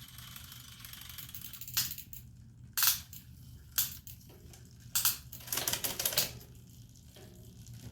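Sharp metallic clicks from a bicycle's shifter and chain drivetrain during a derailleur adjustment: four single clicks about a second apart, then a quick run of clicks.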